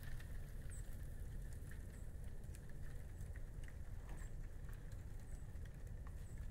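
Quiet outdoor ambience in wet, melting snow: soft irregular pattering and ticks over a steady low rumble. A couple of faint high chirps come through, one just under a second in and another about four seconds in.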